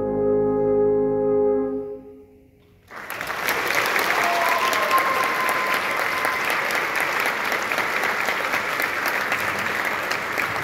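Three alphorns holding a final chord of several notes that dies away about two seconds in. After a second's pause the audience breaks into steady applause, with a short rising whistle from the crowd a little later.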